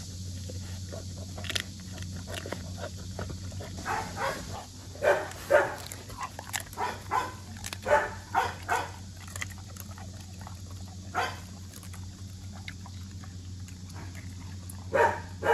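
Rottweiler crunching and chewing a half-frozen duck, a run of irregular crunches that comes thickest in the middle and again near the end, over a steady low hum.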